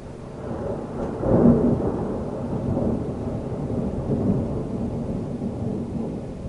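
A long roll of thunder: it builds over the first second, is loudest about a second and a half in, then rumbles on in uneven swells and eases off near the end.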